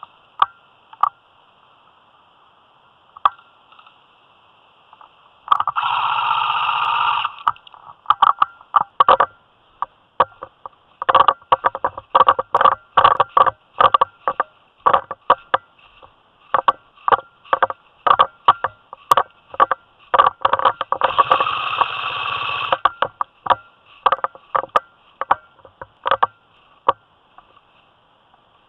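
Airsoft guns firing: two sustained full-auto bursts of about one and a half to two seconds, one about six seconds in and one near twenty-one seconds. Between them are many sharp single shots, some coming in quick strings.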